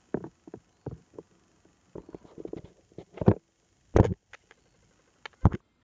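Microphone handling noise as a phone is set up: irregular knocks, bumps and rubs, the loudest a little after three seconds in, at four seconds and near the end.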